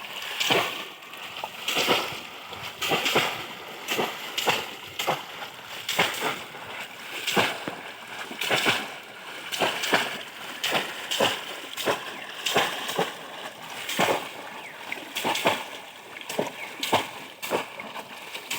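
Water being splashed and sloshed in repeated strikes, roughly one a second, steady throughout.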